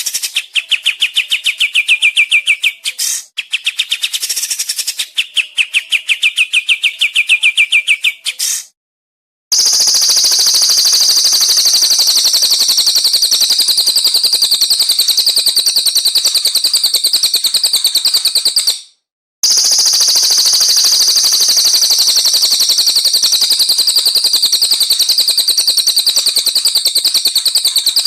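Recorded songbird song in rapid-fire 'tembakan' trills: first lower pulsed trills broken by a short pause, then after a gap about nine seconds in, a higher, dense, unbroken rattling trill that stops briefly about nineteen seconds in and starts again.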